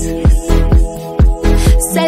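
Electronic dance-pop music: a steady kick drum about twice a second under sustained synth chords, with no singing.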